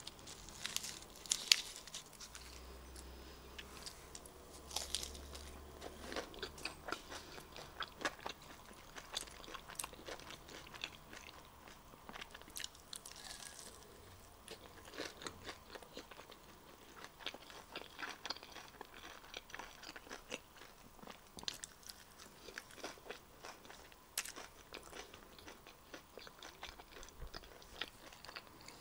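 Close-miked eating sounds: crunchy bites and chewing of a breaded fish stick wrapped in a lettuce leaf, many small crisp clicks one after another. In the first couple of seconds there are sharper crackles as the lettuce leaf is handled and wrapped.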